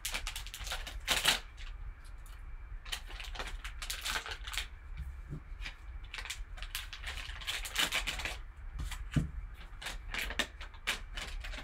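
Foil and plastic trading-card pack wrapping crinkling and tearing as it is opened by hand, in irregular rustling bursts.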